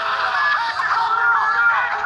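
Music-like sound made of many overlapping pitched notes, some held and some swooping up and down.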